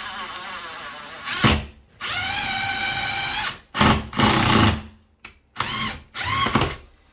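Power drill/driver running in several short bursts, the longest a steady whine of about a second and a half, with the pitch rising as each burst spins up. It is working a door-hinge screw being backed out and reset to sit straight, after the hinge made a cracking noise.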